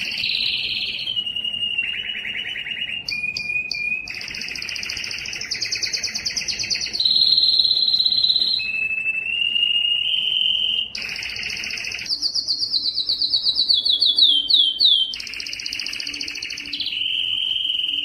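Domestic canary singing a long unbroken song of rapid trills and rolls, with a steady held whistle about midway and a run of quick falling notes near the end.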